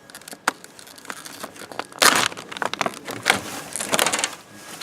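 Packaging for a new chainsaw bar and chain being handled and opened: irregular crinkling and rustling with clicks, loudest in a burst of rustling about two seconds in.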